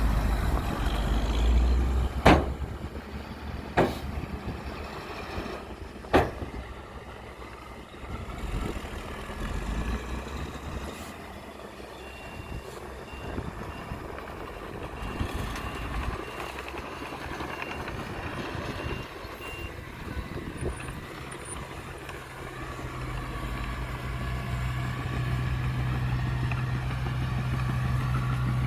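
Heavy earthmoving machines, a dump truck and a bulldozer, running, with three sharp clanks in the first six seconds. A reversing alarm beeps steadily for several seconds in the middle, and a diesel engine grows louder and steadier near the end.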